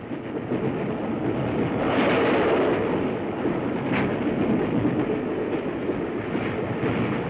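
Steam locomotive hauling a passenger train as it gathers speed: a steady rushing rumble that swells about two seconds in, with a single sharp knock about four seconds in.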